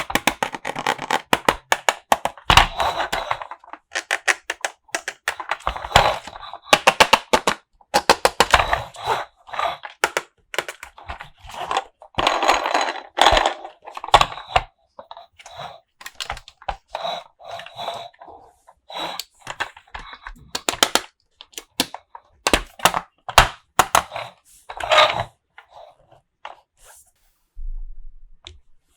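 Toy packaging and small plastic toy pieces being handled: plastic wrappers crinkling and rustling in irregular bursts, mixed with many sharp clicks and taps.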